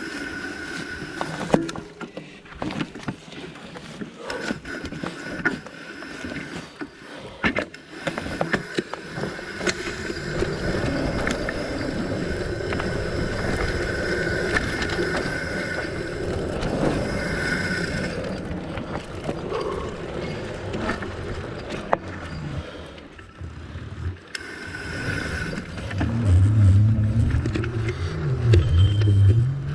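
Fat bike ridden fast down a dirt forest singletrack. The tyres rumble over dirt and roots, and the bike rattles and knocks over bumps, with sharp knocks around 1.5 and 7.5 seconds in. A thin whine comes and goes during the ride, and heavy low rumble and buffeting swell near the end.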